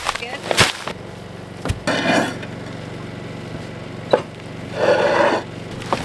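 An earth-moving machine's engine running steadily while it digs, with several sharp knocks and two longer scraping, rattling passes, about two seconds in and again near five seconds.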